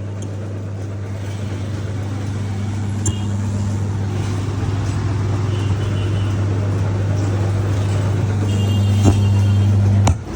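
Loudspeaker under test giving out a loud, steady low hum with a hiss over it, in place of sound: the kind of hum a faulty speaker or amplifier gives. The hum cuts off with a click near the end as it is switched off.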